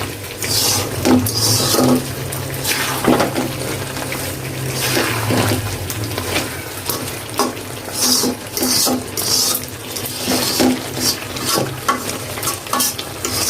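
Spatula scraping and stirring spiced chicken in a kadai as it is dry-fried, with repeated short scrapes and a light sizzle.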